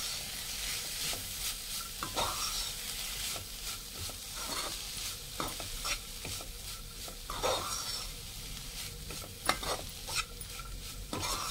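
Keema (minced meat) with onions and herbs sizzling in a frying pan while being stirred, the utensil scraping and knocking against the pan every second or so, with one sharper knock near the end.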